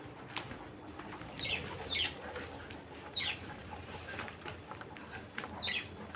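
Budgerigars chirping: four short high chirps over faint steady bird chatter, with pigeons cooing low.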